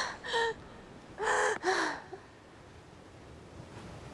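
A woman gasping and sobbing: two short breathy cries in the first two seconds, then only a faint hiss.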